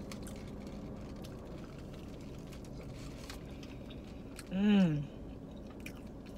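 A person chewing a mouthful of crispy fried chicken sandwich with faint mouth clicks, and a short closed-mouth hum, "mmm", rising then falling in pitch, about four and a half seconds in.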